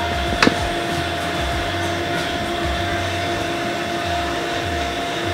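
A single sharp metallic click about half a second in, typical of a PCP air rifle's bolt closing after loading a pellet, over a steady whirring mechanical hum.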